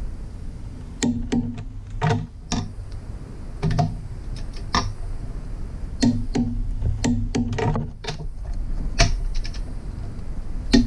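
Click-type torque wrench on the crankshaft bearing cap bolts of a Jeep 4.0 inline-six engine: a string of irregular sharp metal clicks and ratchet ticks, some with a short ring, as each bolt is checked at its set torque.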